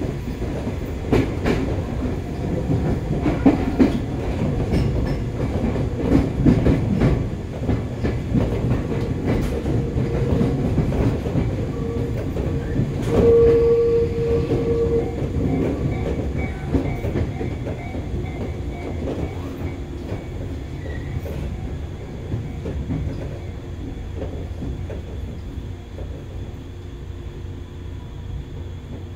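Joshin Electric Railway electric train running, its wheels clicking over rail joints under a steady rumble. A brief steady tone sounds about halfway through. The running sound grows quieter through the second half.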